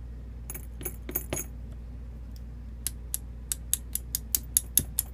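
Sharp metallic clicks and taps of small padlock core parts being handled on a work table: a few scattered clicks, then a steady run of taps, about four a second, growing louder near the end.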